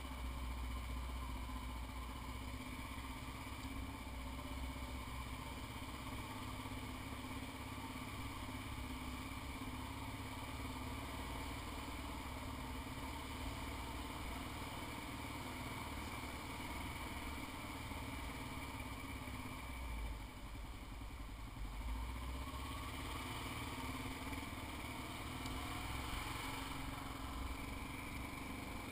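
Kawasaki KLR650's single-cylinder four-stroke engine running steadily while the motorcycle is ridden, its note easing briefly about two-thirds of the way through.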